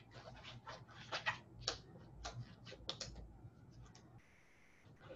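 Faint, irregular short rustles and clicks of a disposable lab glove being pulled and worked onto a hand, over a low steady hum.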